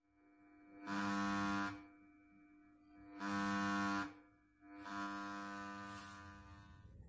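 Loudspeaker of a homemade amplifier board buzzing with mains hum while its audio input lead is handled with no signal playing. The buzz swells three times; the third swell fades off slowly.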